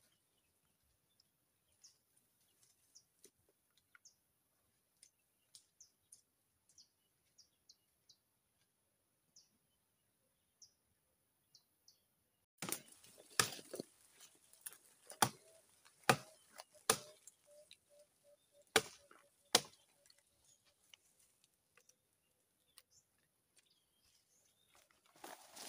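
Faint scattered bird chirps, then from about halfway a run of sharp, irregular axe blows chopping into a tree trunk, about six loud strikes.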